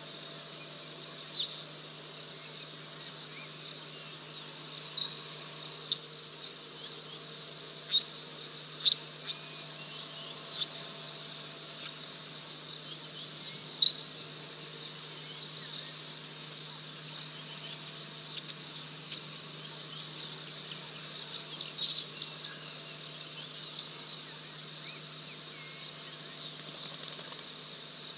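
Bush ambience: a steady high-pitched insect drone, with a low steady hum underneath. Short, sharp high chirps break in here and there, the loudest about six seconds in and a quick cluster around twenty-two seconds.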